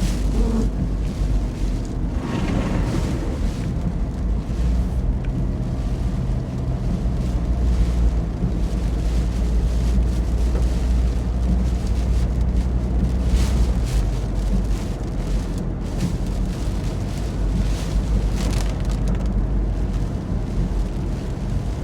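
Strong storm wind buffeting the microphone: a continuous deep rumble with gusts swelling and easing, a few stronger gusts a couple of seconds in and again later on.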